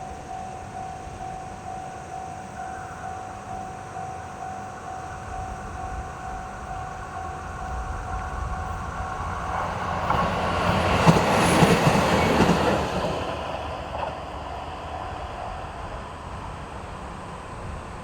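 Japanese level-crossing warning bell ringing in a steady repeating beat while a diesel train on the Takayama Main Line passes, building to its loudest about two-thirds of the way through with clacks of wheels over rail joints, then fading away. The bell stops a couple of seconds after the train has gone.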